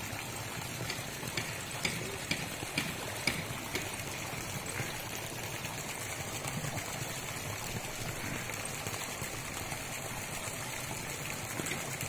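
Steady splash of a jet of water pouring from a pipe into a pond, with a few faint clicks about two to three seconds in.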